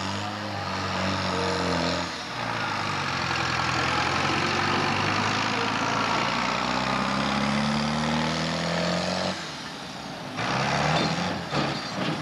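Tractor-pull tractor's diesel engine running at full load as it drags a weight-transfer sled. The engine note climbs, breaks off briefly about two seconds in, then rises steadily. It falls away sharply near the end before picking up again.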